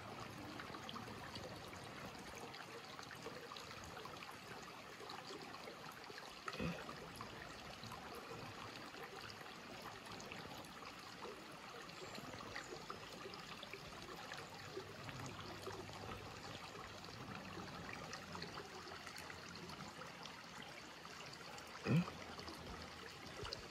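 Faint, steady trickle of shallow creek water running over rocks. Two short, louder sounds stand out, one about six and a half seconds in and one near the end.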